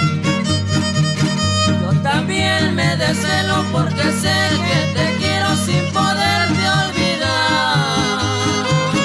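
Trio huasteco playing an instrumental passage of a son huasteco: a violin carries the melody with vibrato over the even strummed rhythm of the jarana huasteca and the bass of the huapanguera.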